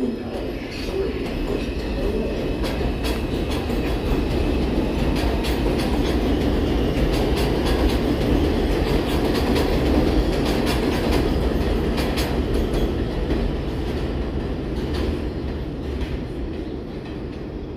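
R142 subway train running over the elevated steel structure and pulling away, its wheels clicking over rail joints. The noise builds to its loudest about halfway through, then fades as the train recedes.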